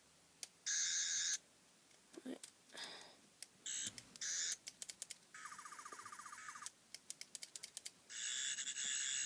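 Toy 11th Doctor sonic screwdriver playing its warbling electronic buzz in several short bursts, with sharp clicks of its buttons being pressed between them, a quick run of clicks near the end.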